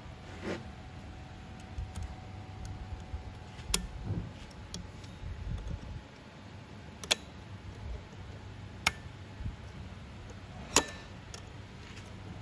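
Tools and metal parts being handled: scattered sharp clicks and clinks, four louder ones about four, seven, nine and eleven seconds in, over a low steady hum.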